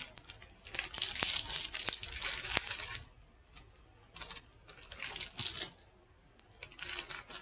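Foil Pop-Tart pouch being handled and torn open, crinkling and crackling in bursts. The longest burst comes in the first few seconds, then shorter handfuls follow.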